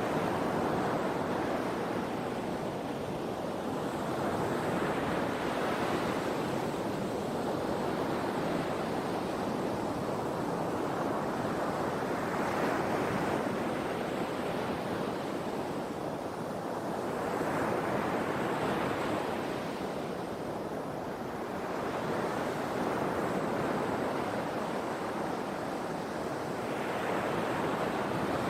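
Sea waves breaking on the shore: a continuous surf wash that swells and ebbs as each wave comes in, about every four to six seconds.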